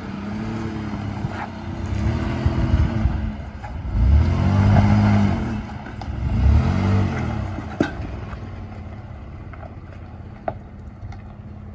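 Chevrolet Colorado ZR2 pickup's engine revving in four rising and falling surges as it crawls up a steep slickrock slope, then settling to a quieter drone as the truck moves off. A couple of sharp clicks come in the last few seconds.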